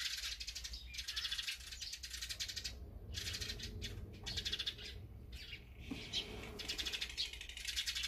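Wild birds calling at a backyard feeding spot, azure-winged magpies among them: a dense, raspy chatter that breaks off now and then, with a few short high chirps.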